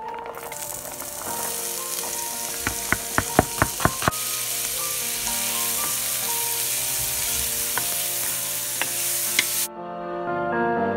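Diced onion and celery sizzling in butter in an enamelled cast-iron pot while being stirred with a wooden spoon. About three seconds in, a quick run of roughly eight sharp knocks of the spoon against the pot. The sizzle cuts off suddenly about a second before the end.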